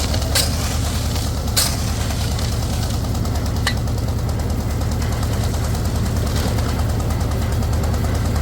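An engine running steadily with a fast, even throb. A few short sharp scrapes or knocks sound over it, about half a second, a second and a half, and nearly four seconds in.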